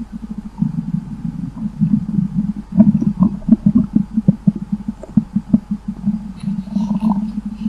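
Stomach rumbling and gurgling: a steady low growl broken by quick, irregular pops and gurgles, with a few higher squeaky gurgles near the end.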